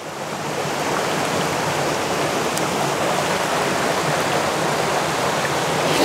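Waterfall rushing steadily, a dense even noise that swells during the first second and then holds.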